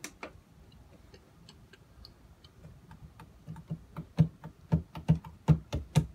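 A series of sharp clicks and knocks, faint and scattered at first, then louder at about two a second over the last two seconds.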